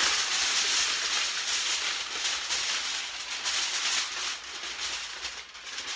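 Aluminum foil crinkling and crackling as hands twist and crush it into shape, a continuous crisp rustle.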